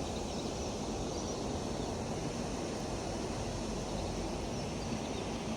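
Steady rushing outdoor noise from wind or water, with faint bird chirps scattered through it.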